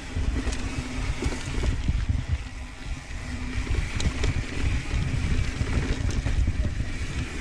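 Santa Cruz Tallboy mountain bike descending a dirt trail: wind rumbling on the camera microphone and tyres rolling over dirt, with scattered sharp clicks and rattles from the bike hitting bumps.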